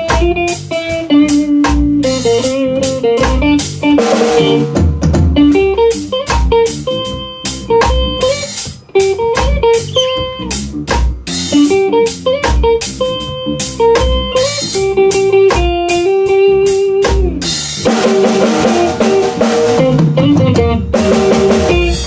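Live band playing: a drum kit keeping a steady beat of kick, snare and cymbals under an electric guitar and a bass guitar.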